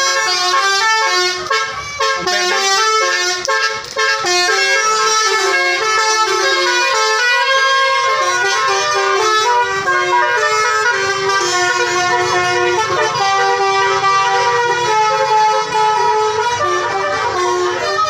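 Bus's Basuri telolet musical horn playing a melody, several tones together stepping quickly from note to note without a break.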